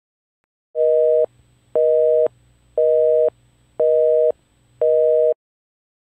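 Telephone busy signal: five beeps, each a two-note tone about half a second long with equal gaps between them, in the North American busy-tone pattern.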